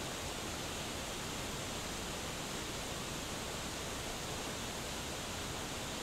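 A waterfall cascading down a rock face: a steady, unchanging rush of falling water.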